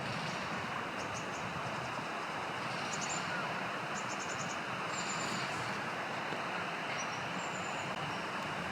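Short, high, thin bird calls come in several brief groups, including a quick run of about five notes near the middle and two short held whistles later on. They sit over a steady rushing noise.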